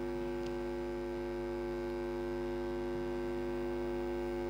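Steady electrical hum made of several fixed tones that do not change.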